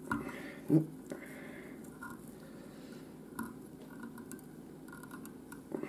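Quiet handling sounds of fingers picking and stroking the ice dub fibres and hackle of a salmon fly, light rustling with small ticks. One short low thump comes just under a second in.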